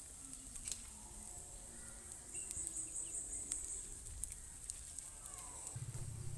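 Insects trilling steadily, with one pulsed burst of chirping in the middle, and faint scattered crackles. A low buzzing hum comes in near the end.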